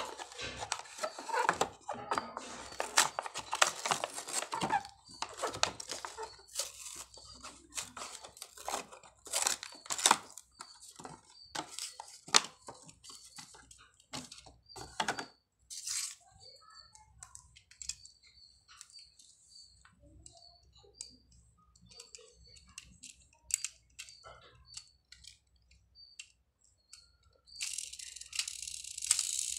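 Blister-pack toy packaging torn open by hand: card and clear plastic tearing, crackling and crinkling for about the first fifteen seconds. After that, sparse clicks and taps as the plastic toy tractor is handled, with a faint short high chirp repeating, and a brief burst of rustling near the end.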